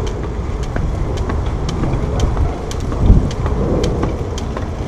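Jump rope slapping the ground about twice a second as she skips, over a steady low rumble, with one louder low thump about three seconds in.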